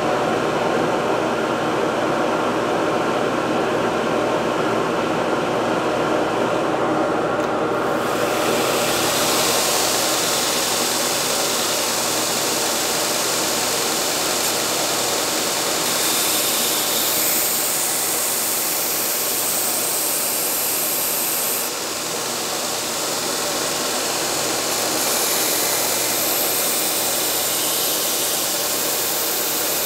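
Belt grinder running steadily; from about eight seconds in a knife blade is pressed to the moving belt, adding a high grinding hiss that eases off and comes back a few times as the blade is worked against it.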